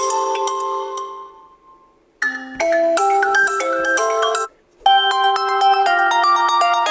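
Stock Huawei Honor Play 7 ringtones previewed one after another. One chiming melody fades out over the first two seconds. A short tune plays and stops abruptly about halfway. Another ringtone starts just before the five-second mark.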